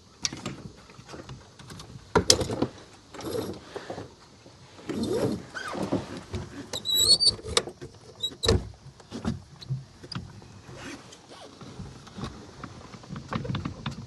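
Small sailboat's gear being worked during a tack: irregular knocks and clunks, the loudest about two seconds in and again past the middle, with a short high squeal around halfway.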